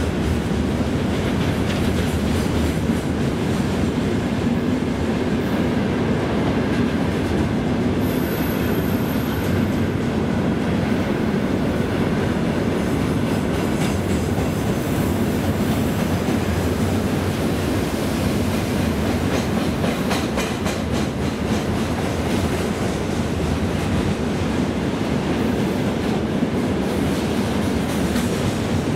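Freight train's open-top gondola wagons rolling past at speed: a steady rumble and clatter of steel wheels on the rails, with a brief high wheel squeal about a third of the way through.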